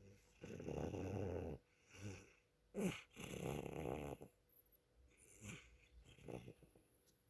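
Domestic cat snoring: two long snores of about a second each, with a short sharp sound between them, then fainter breaths in the second half.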